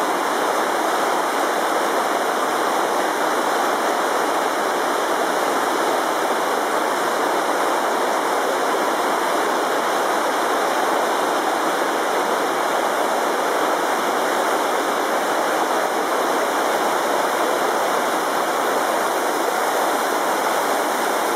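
The Carbon River, a glacier-fed river running high and raging, rushes steadily over rocks in a loud, unbroken wash of white water.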